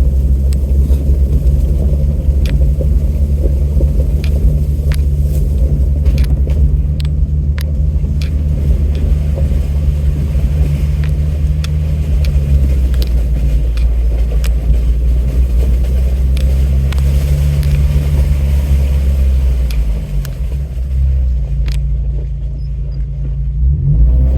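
Four-wheel-drive vehicle's engine running at low speed over a rough dirt road: a steady low rumble with frequent sharp knocks and rattles from the bumps. It eases off about twenty seconds in, then picks up briefly near the end.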